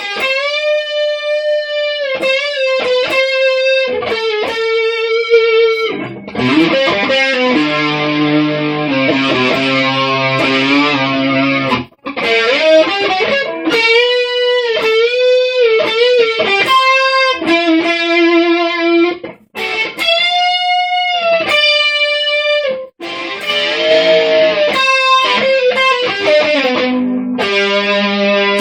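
Distorted electric lead guitar solo: long sustained notes bent up and down, played in phrases with short breaks between them.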